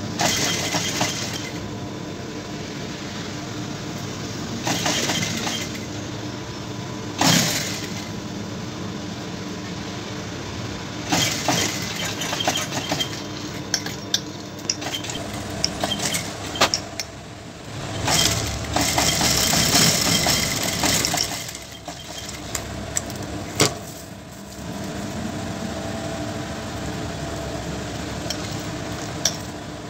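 Industrial single-needle lockstitch sewing machine stitching fabric in several short runs, with its motor humming steadily between them. A few sharp clicks and clatters are mixed in.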